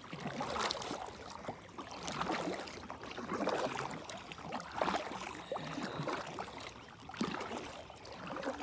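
Kayak paddle strokes turning the boat: water splashing and dripping off the paddle blades, swelling with each stroke about every second or so.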